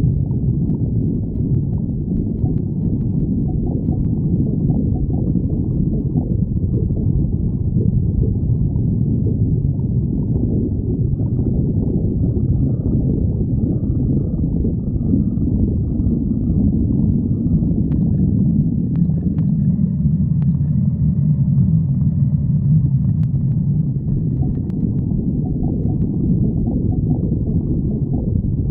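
A person's stomach growling, a continuous low rumble with faint higher whining notes partway through.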